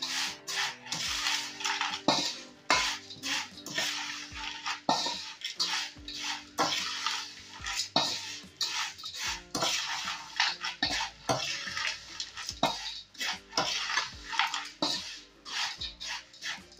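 A perforated steel ladle stirs dry, crisp poha chevda in a large stainless steel bowl. It makes repeated scrapes and clinks of metal on metal, mixed with the rustle of the dry flakes.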